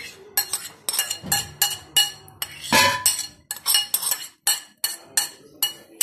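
Rapid metal clinks, about four a second, as a spoon scrapes and taps tomato paste from its tin into an aluminium cooking pot.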